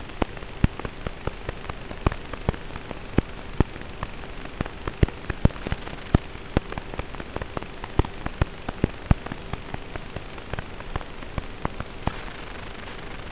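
Irregular sharp crackles and pops, several a second, over a steady hiss and a faint constant hum: static on the audio of an analog FPV video link.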